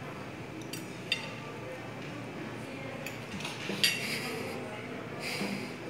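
Metal fork and knife clinking and scraping on a ceramic dinner plate, a few sharp clinks with the loudest about four seconds in.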